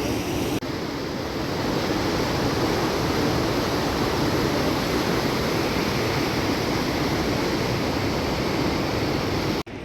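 Steady rushing noise with no distinct events; it breaks off briefly about half a second in and drops away abruptly near the end.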